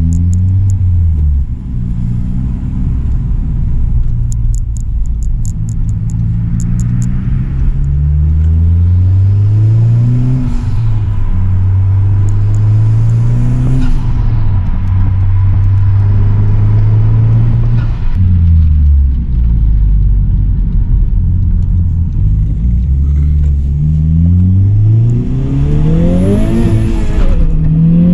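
Honda Civic Type R's turbocharged 2.0-litre four-cylinder with an APEXi front pipe, N1 cat-back exhaust and PRL intake, pulling under acceleration. The exhaust note climbs in pitch over a few seconds and drops back sharply, several times over, as at gear changes.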